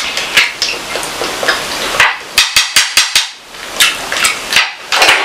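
Close-up eating sounds of a person eating fried fish by hand: chewing and mouth clicks, with a quick run of about six sharp clicks about two and a half seconds in.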